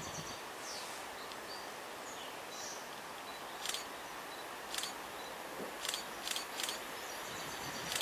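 Open-air countryside ambience: a steady hiss with a few faint bird chirps. From about three and a half seconds in come several short, sharp high-pitched chirps or clicks.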